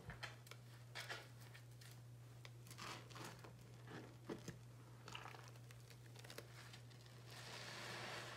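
Soft crackling, squishing crunches as a wet, soaked soap block is pressed and crumbled by hand in sudsy water, over a steady low hum. A soft fizzing hiss swells near the end.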